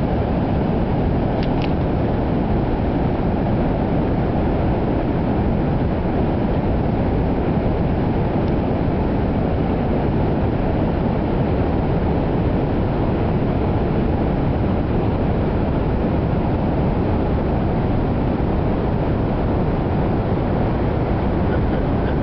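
Steady, unbroken roar of heavy Pacific surf, deep and even without separate wave crashes.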